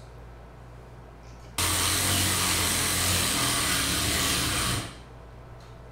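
Cordless 12-volt brushed 3/8-inch electric ratchet running for about three seconds, driving a lag screw into a wooden board. It starts abruptly about a second and a half in and winds down near the end.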